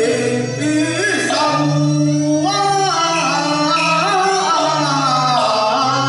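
Live Cantonese song: a male voice singing over a small accompanying instrumental ensemble, the melody sliding between long held notes.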